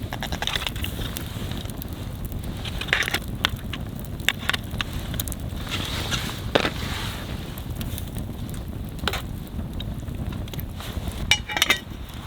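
Wind rumbling on the microphone, with scattered crunches and clicks, a few clustered together near the end.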